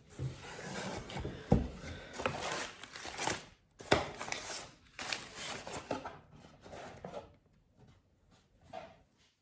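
Rustling and scraping of packaging being handled, with two sharp knocks about a second and a half and four seconds in, dying away after about seven seconds.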